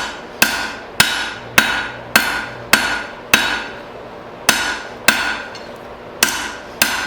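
Blacksmith's hammer striking hot steel bar stock on an anvil, about two blows a second with a short ring after each, drawing the bar out into a long thin taper. The blows pause briefly a little past halfway, then resume.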